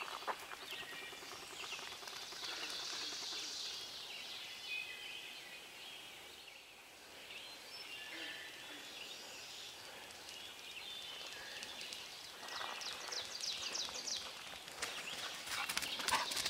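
Dawn chorus of several forest songbirds singing and trilling together. Footsteps on a gravel road come in and grow louder over the last few seconds.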